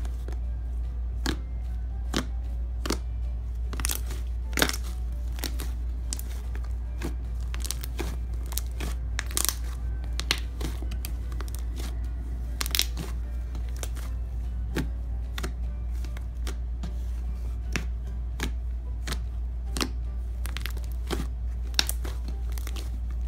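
Fluffy slime made with shaving cream being stretched and squished, giving irregular sharp crackles and pops over a steady low hum.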